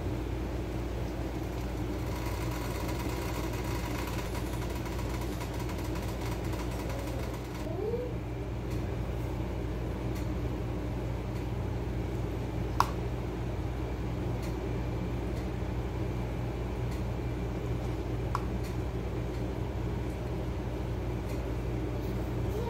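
Hot oil bubbling and sizzling as potato fries deep-fry in a pan, over a steady low mechanical hum. About seven seconds in the sizzle cuts off and the hum carries on, with a few faint ticks and one sharp click a little past halfway.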